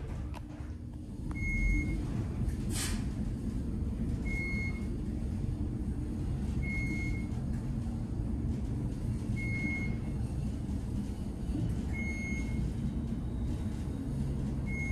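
Traction elevator car travelling downward, its ride making a steady low rumble that picks up about a second and a half in. A short single-pitch beep sounds about every three seconds, the car's floor-passing tone as it goes down past each floor. There is also a brief hiss about three seconds in.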